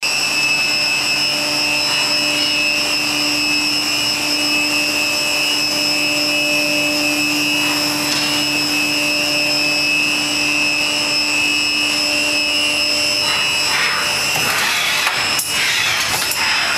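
Stama MC-331/TWIN vertical machining centre running: a steady machine whine made of several held tones over a hiss. The lowest tone drops out about three-quarters of the way through, and the sound grows more uneven near the end.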